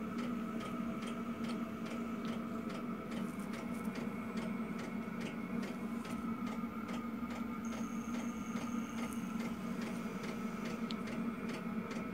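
Repaired mini inductor induction heater running on test, its small cooling fan going: a steady hum with a regular light ticking, a few ticks a second. The unit is working again after the repair.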